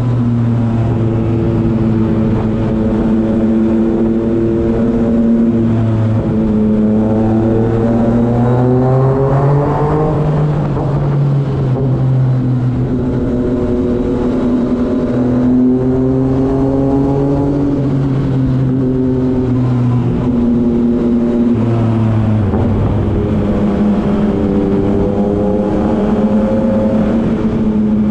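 Yamaha XSR900's inline three-cylinder engine running at cruise through a road tunnel. Its pitch rises and falls a few times as the throttle is opened and closed, climbing most around a third of the way in.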